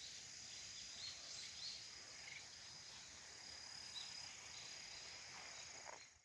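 Insects chirring faintly and steadily in high, even tones, with a few short faint chirps over them.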